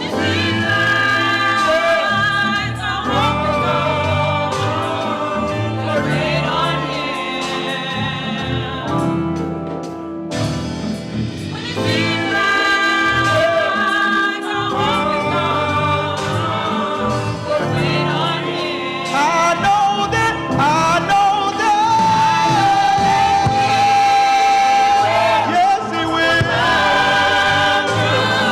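Gospel choir singing, with one voice holding a long steady note about three-quarters of the way through.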